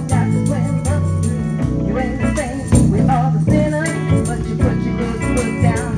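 A live rock band playing: electric guitars, a drum kit and a keyboard.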